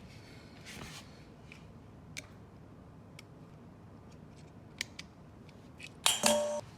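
Metal parts handled during work on a motorcycle: scattered light clicks and taps, then two loud ringing metal clinks about six seconds in.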